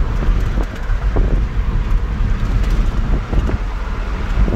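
Road noise inside a moving car's cabin: a steady low rumble from the tyres and engine while driving.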